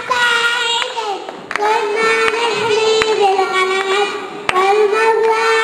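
Young children singing an Arabic song together into a microphone, holding long notes, with a few hand claps.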